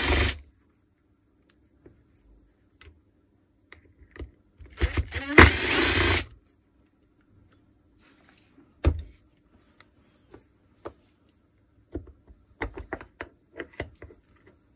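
Small electric screwdriver running in short bursts to back out two bolts inside the housing of a Makita DHR242 rotary hammer, the longer burst about five seconds in. Light clicks and taps of metal parts being handled follow.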